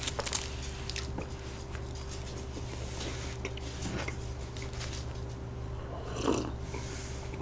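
Soft, quiet eating of soboro (streusel-topped) bread: the bun pulled apart and chewed, with small scattered clicks and crackles from the crumbly topping. A gulp of milk from a glass about six seconds in. A faint steady hum lies underneath.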